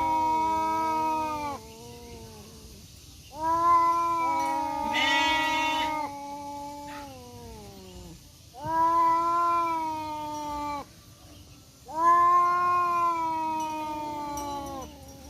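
Two tomcats yowling at each other in a standoff: four long, drawn-out wailing calls with short gaps between them. In the second call the two voices overlap and a brief higher cry breaks in.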